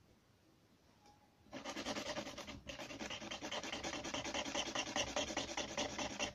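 Quick rubbing strokes of a small model part being abraded by hand. They start about a second and a half in, pause briefly a second later, then carry on.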